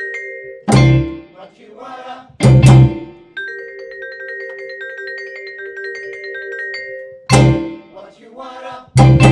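Latin jazz band playing: a vibraphone sustains a chord with fast repeated mallet strokes, broken by loud full-band accents with electric bass, congas and timbales. The accents come twice in the first three seconds and twice near the end.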